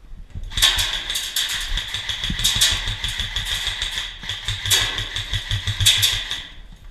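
Airsoft electric gun firing one long full-auto burst of about six seconds: the gearbox whirs and cycles rapidly, starting and stopping abruptly with the trigger.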